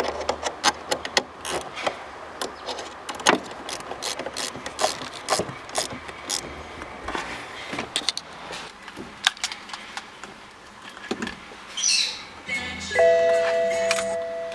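Ratchet wrench clicking in short irregular runs as the 10 mm nut on the car battery's negative terminal is tightened. About a second before the end, the BMW's dashboard warning chime sounds as a few held tones when the ignition is switched on after reconnecting the battery.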